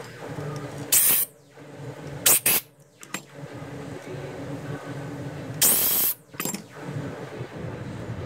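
Sandpaper worked by hand over a urushi-lacquered wooden tray after grain filling: five short strokes in three groups, the longest near the middle, over a steady low hum.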